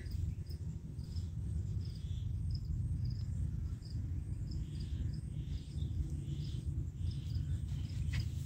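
A cricket chirping steadily, about three chirps a second, over a low outdoor rumble, with a light click near the end.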